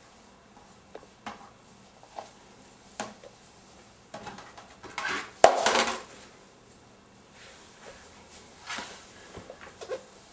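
Hard plastic DVD cases and a TV remote being handled by a baby: scattered clicks and knocks, with a louder burst of clattering about five seconds in.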